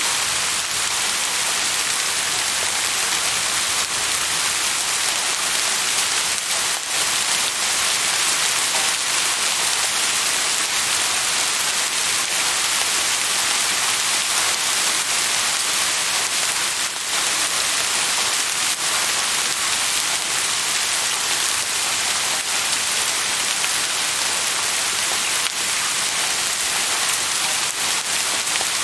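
Steady rain falling on a surface, a continuous even hiss with scattered individual drops ticking.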